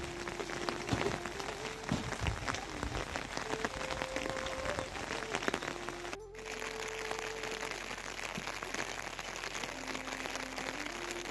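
Steady rain falling, heard as an even hiss, with a soft melody of long held notes stepping up and down in pitch over it.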